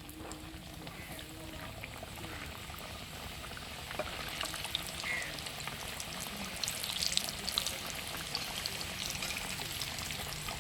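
Samosas deep-frying in hot oil: a steady sizzle with many small crackles, which gets louder about four seconds in.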